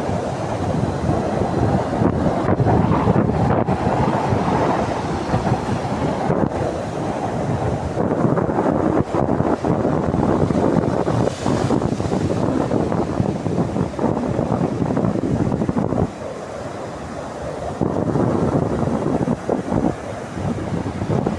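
Ocean surf washing and breaking on the shore, a loud continuous rush that eases briefly about three quarters of the way through, with wind buffeting the microphone.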